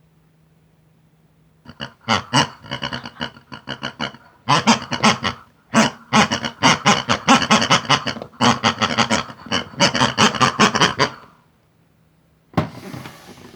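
Pig characters chattering in squeaky, rapidly pulsing gibberish in several loud stretches, starting about two seconds in. A short hiss follows near the end.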